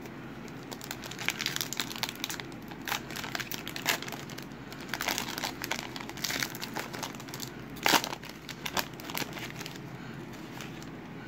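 Foil-lined trading-card pack wrapper crinkling and crackling in the hands as it is twisted and opened, in irregular bursts, with one sharper, louder crackle about eight seconds in.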